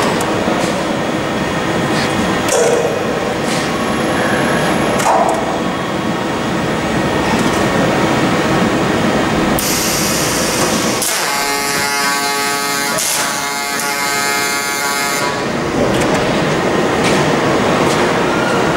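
FANUC Arc Mate 100iB welding robot's servo-driven arm moving, over steady machine noise. About ten seconds in, a high hiss comes in, joined by a whine of several even tones that lasts a few seconds.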